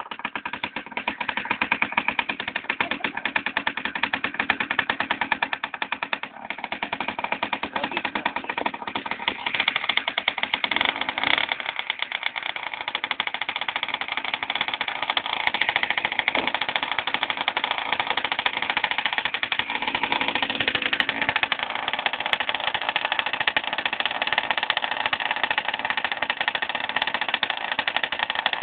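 A small engine running steadily, with a fast, even rattling beat; it picks up in level within the first second.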